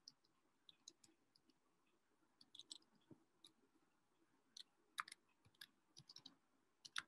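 Faint, irregular clicks of computer keyboard keys typing, a few keystrokes at a time with short pauses between.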